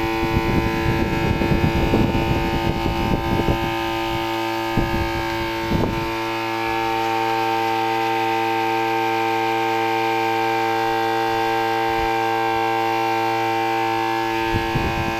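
RS 775 DC motor of a homemade table fan running at speed with a steady whine. For roughly the first six seconds a gusty low rumble of moving air sits under it, then the whine carries on alone.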